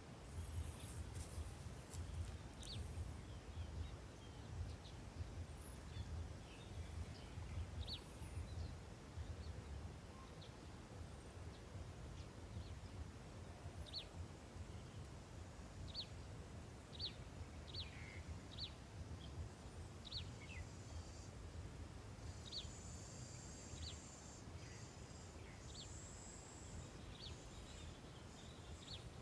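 Faint ambience of small birds giving short, scattered chirps, over a steady low rumble. About two-thirds of the way through, a high, steady insect buzz joins in.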